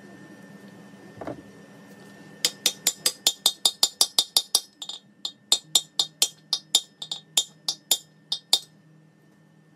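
A quick run of about two dozen light, sharp metallic hammer taps, about four a second, with a brief pause midway, after a single dull knock.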